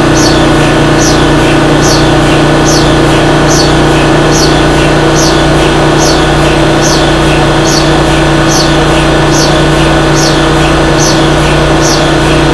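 HTS DC induction heating machine running: the electric drive motor spins the aluminium billet in the superconducting magnet's field, with a loud, steady hum of several fixed tones. A short, high, falling chirp repeats about twice a second over the hum.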